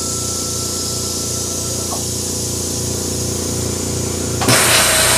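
CNC router running its cutting program with an air compressor going in the shop: a steady, evenly pulsing machine drone. About four and a half seconds in, a much louder hiss starts.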